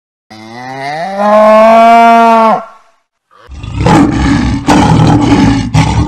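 A cow mooing once, a long call that rises in pitch and then holds steady for about two seconds. About halfway through, a lion starts roaring, a rough, loud sound.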